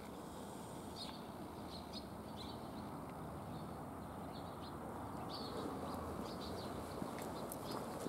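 Short, scattered chirps of small birds over a steady outdoor background noise that slowly grows louder.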